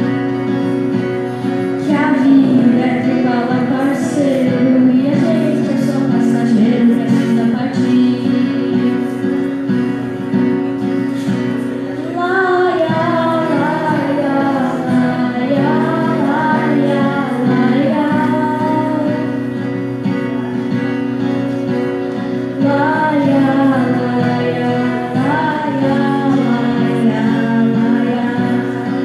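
A child singing a slow song over a steady instrumental backing. The voice comes in a couple of seconds in and sings in phrases with short instrumental gaps between them.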